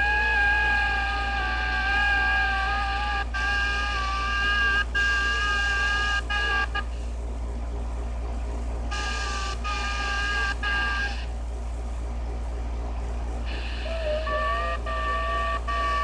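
A Stryker SR-955HP 10-meter transceiver's speaker receiving several steady tones at once, each stepping slightly up and down in pitch like data signals, with occasional sharp clicks over a low hum. The tones drop out twice as the dial is turned, and come back at different pitches near the end.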